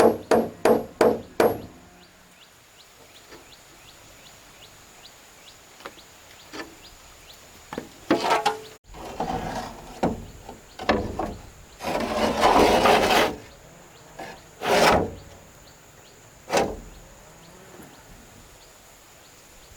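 A quick run of about six sharp knocks on wood, then several longer scraping and rustling sounds of something being worked or handled.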